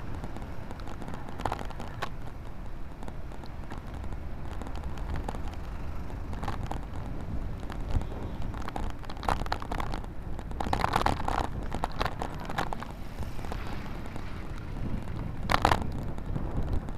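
Riding noise: a steady low wind rumble on the microphone, with scattered clicks and rattles. The loudest rattles come about eleven seconds in and again near the end.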